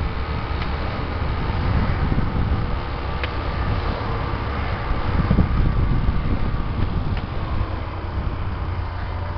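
Motorcycle engine running steadily at low road speed, with wind noise on the microphone.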